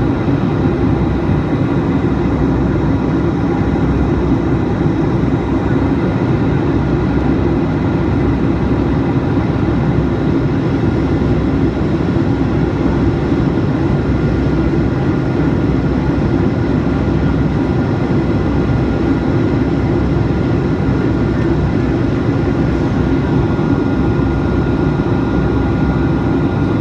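Steady cabin noise of a Boeing 757-200 in flight: a constant low rush of jet engines and airflow heard from inside the cabin, with faint steady whines above it.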